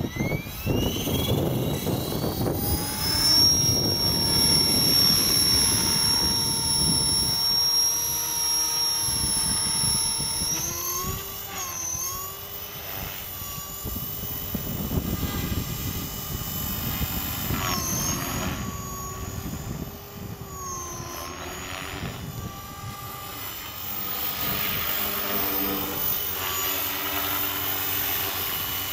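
Nitro-engined radio-controlled helicopter spooling up: a whine climbs steeply in pitch over the first few seconds, then holds steady as it lifts off and flies. The pitch dips and recovers briefly three times.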